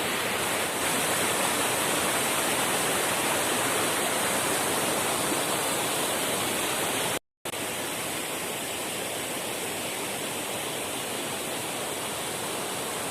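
Waterfall's falling water making a steady rushing noise; it cuts out for a moment about halfway, then resumes a little quieter.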